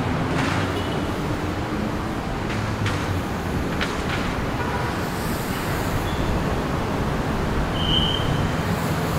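Street traffic running steadily past: a constant hum of vehicle engines and tyres, with a few short clicks in the first few seconds and a brief high beep near the end.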